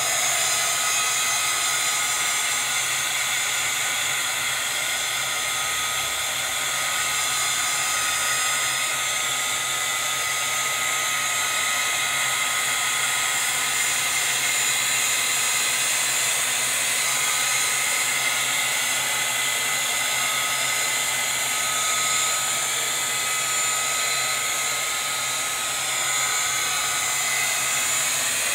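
Small handheld craft heat gun running steadily: a constant rush of blown air with a thin whine, played over wet acrylic pour paint.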